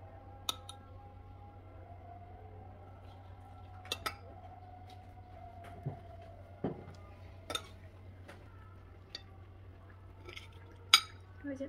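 Metal spoon and fork clinking and scraping against a ceramic dinner plate as food is served onto rice: scattered sharp clinks, a double one about four seconds in and the loudest near the end.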